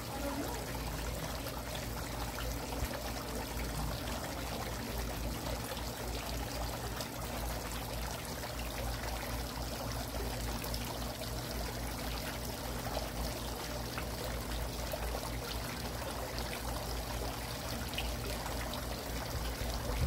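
Tiered garden water fountain running: water pouring from the top spout into the bowl and trickling off the bowl rims in a steady, unbroken splash.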